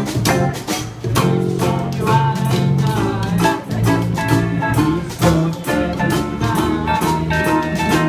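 Small acoustic string band playing a swinging Hawaiian-style tune live: ukuleles strummed over a walking upright double bass, with a small drum keeping a steady beat.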